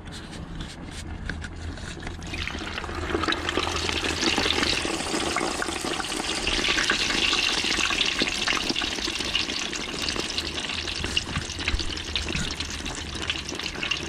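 Hot oil sizzling and crackling in an aluminium fryer pot around a piece of duck held in it with tongs. The sizzle swells a couple of seconds in.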